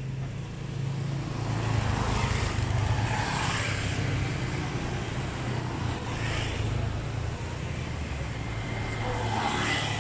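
Motor scooters passing along a street, engines swelling and fading as each goes by, over a constant low traffic hum.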